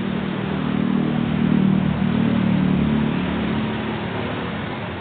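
Road traffic: a vehicle passing close by, its engine and tyre noise swelling about a second in and fading after about three seconds.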